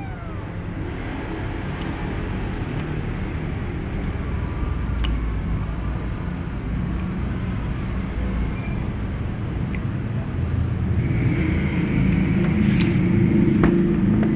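A low, steady rumble that swells louder about eleven seconds in, with a few faint clicks scattered through it.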